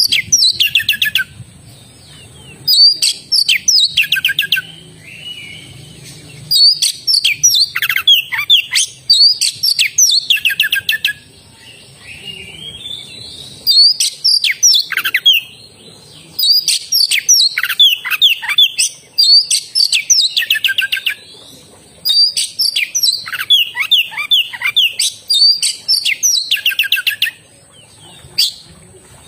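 Oriental magpie-robin (kacer) in full song: loud bursts of fast, varied whistles and chattering notes, each phrase a second or two long with short pauses between, repeated over and over.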